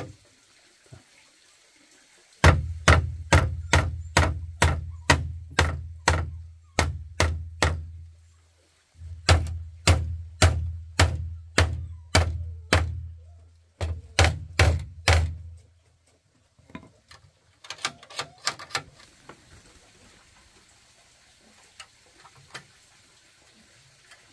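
Hammer blows on wood, about two a second in three runs of several seconds each, every blow with a deep thud; a few lighter, quicker taps follow near the end.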